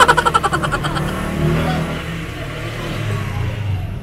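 Motorcycle engine running and pulling away, its pitch rising twice as it accelerates. A rapid, even pulsing sound fills about the first second.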